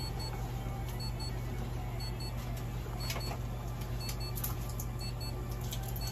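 An electronic device gives a short, high-pitched double beep about once a second over a steady low electrical hum. A few light clicks come in around the middle.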